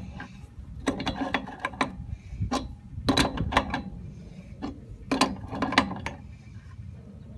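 Adjustable wrench clicking against a Teflon-taped threaded fitting as it is turned in short strokes to tighten it into a gas water heater's gas control valve. The sound comes as several bursts of quick, sharp metallic clicks.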